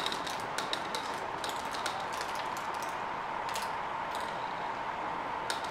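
Glass marbles rolling along a plastic race track and clicking against it and each other as they reach the finish, irregular sharp clicks over a steady hiss and a faint steady hum.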